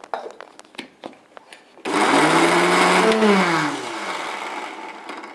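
Mixer grinder (mixie) grinding grated coconut in its steel jar: after a few light clicks of the jar and lid being set, the motor starts about two seconds in with a loud whirr, runs for a second or so, then is switched off and winds down with falling pitch.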